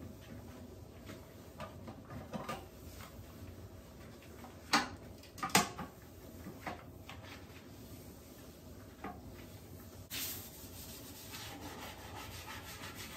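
Rubber-gloved hand wiping down a toilet: soft rubbing against the porcelain and seat, with two sharp knocks about five seconds in, a lighter knock later, and a brief hiss about ten seconds in.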